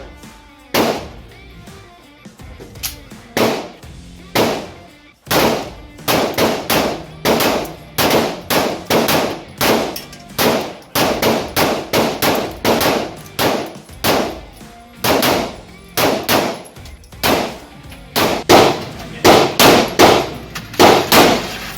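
Semi-automatic gunfire: dozens of sharp shots at an irregular pace, sometimes two or three a second, each followed by a brief ring of echo.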